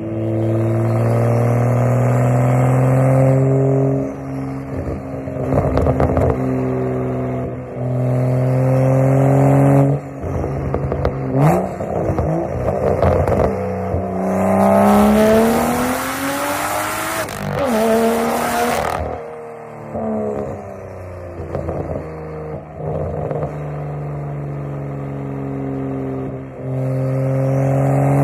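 BMW M2's N55 turbocharged inline-six through a single-exit straight-pipe exhaust, running under way: steady drones alternate with several pulls where the pitch climbs, the longest and loudest about halfway through, with short crackles between pulls.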